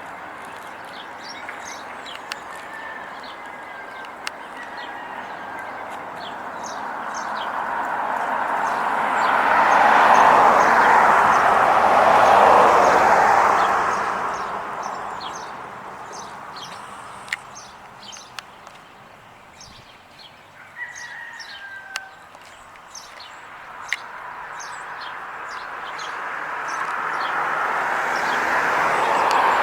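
Outdoor bird sounds: small birds chirping repeatedly, with a couple of short falling calls, while a broad rushing noise swells to a peak about ten to thirteen seconds in, fades away, and swells again near the end.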